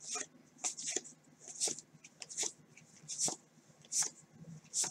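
A stack of Topps Heritage baseball cards being flipped through by hand, one card slid from front to back at a time. Each move gives a short papery flick, about eight of them, roughly one every three-quarters of a second.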